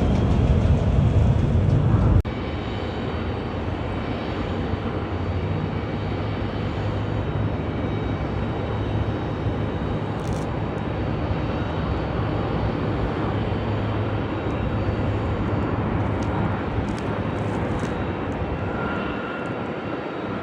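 Passenger jet engines at an airport, a steady roar. A heavier low rumble cuts off abruptly about two seconds in.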